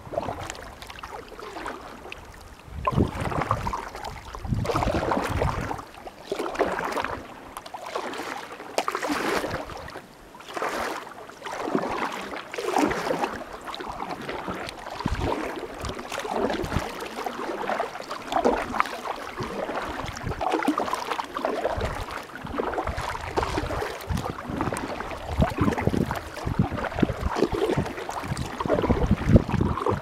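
Double-bladed kayak paddle dipping and splashing in calm water, a swish every second or two as the paddler strokes along, with wind buffeting the microphone.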